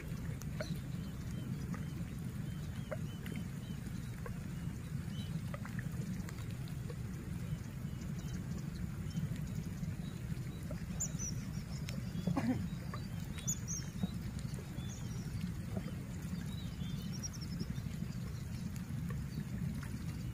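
Steady low rumble of wind on the microphone, with faint high bird chirps through the middle and a single soft knock about halfway.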